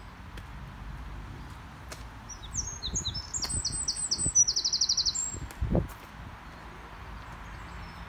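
A small songbird singing a phrase of high, short down-slurred notes that speeds into a rapid trill, over a steady outdoor background hiss. A low thump comes right after the trill.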